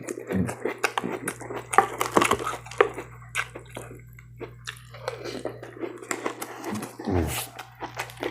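Close-miked chewing of crisp rice cereal in milk: wet, crackly crunching in two spells with a pause between, over a steady low hum.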